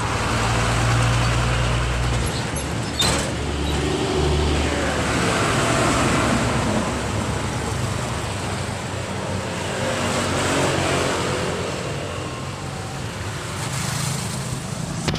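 Road traffic passing close: a heavy truck's engine running by at first, then more vehicles whose sound falls in pitch as they pass. A sharp click about three seconds in.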